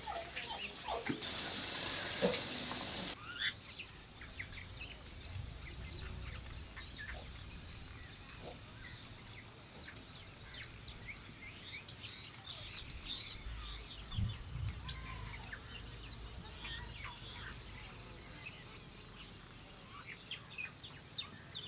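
Background birds chirping faintly, one repeating a short high chirp about twice a second among scattered other calls. In the first three seconds a steady hiss is louder, then cuts off abruptly.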